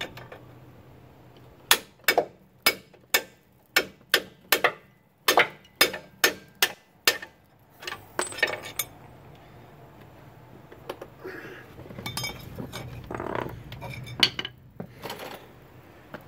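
Hammer striking a steel punch held against the shock mount: about a dozen sharp metal blows, roughly two a second, starting about two seconds in and stopping around seven seconds. The hammering is driving out a broken shock bolt slug. Lighter metal clinks and tool handling follow.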